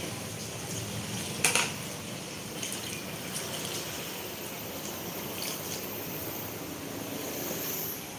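Hands swishing and rubbing leafy greens in water in a stainless steel bowl, with light splashing. About a second and a half in comes one sharp clack, as the clear plastic lid is set down.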